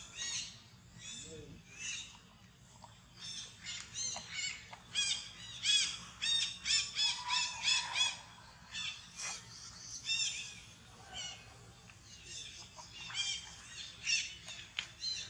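Birds calling: a long run of short, high, arching chirps, several a second, busiest in the middle stretch and thinning toward the end.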